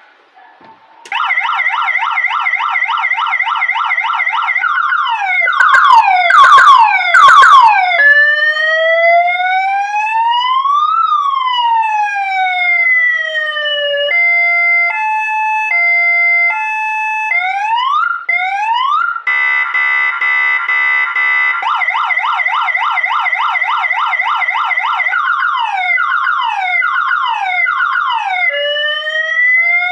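Kingvox ERP 20 electronic siren (20 W) cycling through its tones: a fast yelp, an even faster warble, a slow rising and falling wail, a two-note hi-lo, and a steady horn blast. It then goes back to the yelp and ends on a rising wail.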